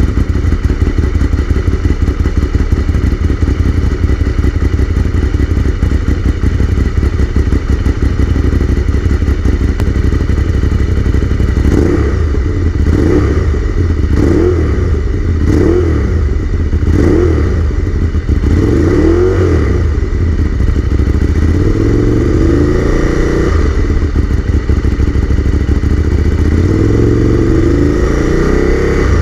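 Ducati 848's V-twin engine on its standard exhaust, idling steadily, then revved: about six quick throttle blips from roughly twelve seconds in, followed by two longer revs that rise and fall near the end.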